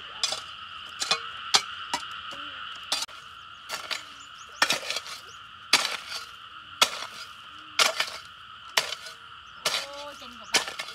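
Sharp knocks, about one a second, over a steady high-pitched chorus of calling frogs or insects.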